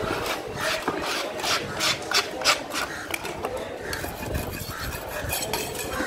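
Knife scraping along a parrotfish's large scales on a wooden block, in quick rasping strokes about four or five a second that turn into a denser, softer scraping about halfway through.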